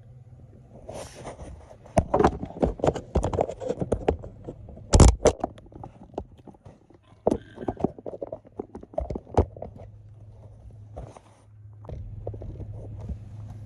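Close-miked eating of buttered shrimp: chewing and lip smacking with a quick run of sharp clicks and knocks, the loudest about five seconds in, over a low steady hum that thins the clicks out near the end.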